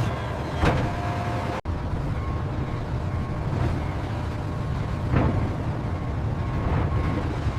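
Factory processing-line machinery running with a steady low rumble, broken by a few brief sharp sounds; the sound cuts out for an instant about a second and a half in.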